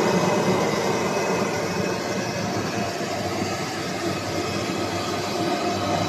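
Waste shredder machine running, a loud steady mechanical noise with a few steady tones through it, easing a little in the middle.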